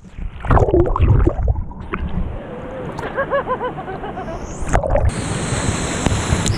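Rushing, splashing water as a woman shoots down a natural rock waterslide into a pool, muffled at first as the camera goes into the foam. A short cry comes about half a second in, and a burst of her laughter follows about three seconds in.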